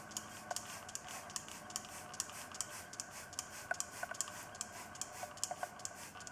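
Faint, irregular light ticking, several ticks a second, over a faint steady tone.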